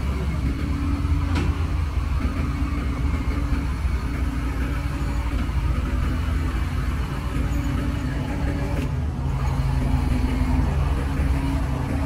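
Diesel engine of a truck-mounted crane running close by as a steady low rumble, its tone shifting a little, over passing road traffic. One sharp click about a second and a half in.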